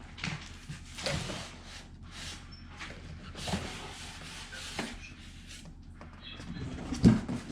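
Handling of a PC case and its packaging: scattered rustling and rubbing with light knocks, and a sharper knock about seven seconds in.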